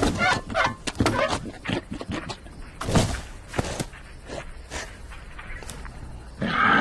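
Cartoon soundtrack: a cartoon lion's grunts and mouth noises, then a few sharp knocks around the middle, and a short burst of hiss near the end.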